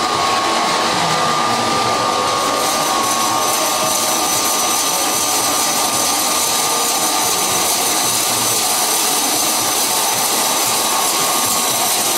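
Electric woodworking machine running steadily, a constant motor noise with a steady whine, joined by a higher whine about two and a half seconds in.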